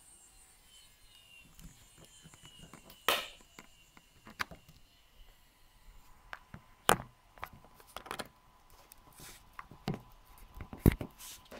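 Handling noise: scattered knocks and clicks as the camera is moved about and cables and connectors are handled, with the loudest knock near the end.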